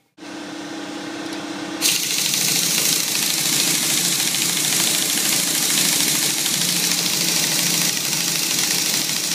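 Power tool driving the threaded rod of a coil-spring compressor to compress a long front coil spring. It starts with a steady motor whine, and about two seconds in a much louder harsh mechanical rattle joins as the tool comes under load, running until it stops just before the end.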